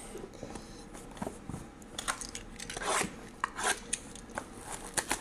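A cardboard trading-card hobby box being handled and turned over by hand: scattered taps, clicks and rustles.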